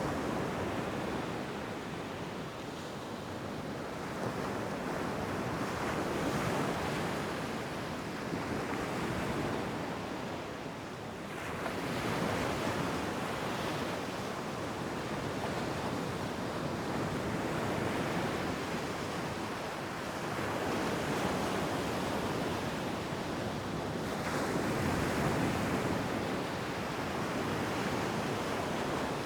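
Ocean surf on a beach: waves breaking and washing in, a continuous rushing that swells and ebbs every several seconds, with a brief lull about eleven seconds in.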